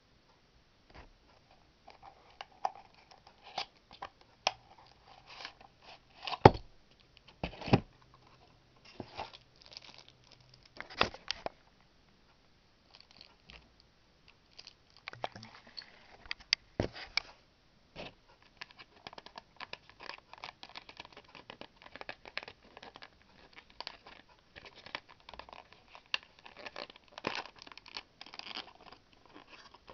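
Hands unboxing a small model airplane: a cardboard box is opened and a clear plastic-wrapped part and plastic case are handled. A few sharp knocks and clicks come in the first half, and plastic crinkling and tearing carries on almost without a break through the second half.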